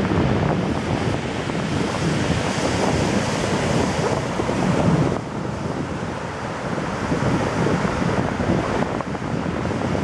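Ocean surf breaking and washing up the beach in a steady rush, with wind buffeting the microphone. The level dips slightly about halfway through.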